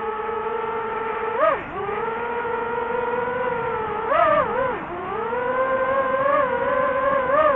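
DJI FPV drone's 5045 bullnose two-blade propellers whining in fast flight in sport mode: a steady high tone that dips and swoops briefly about a second and a half in and again about four seconds in as the motor speed changes, then climbs slowly and wavers.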